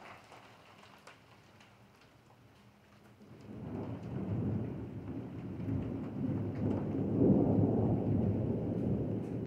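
Rain falling with scattered drips, then about three seconds in a long rumble of thunder builds and rolls on, loudest a little before the end.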